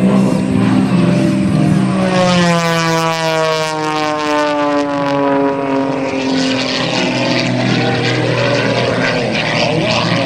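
Extra 300S aerobatic plane's six-cylinder piston engine and propeller droning overhead. Its pitch falls steadily for a few seconds from about two seconds in, then settles into a noisier, steady drone.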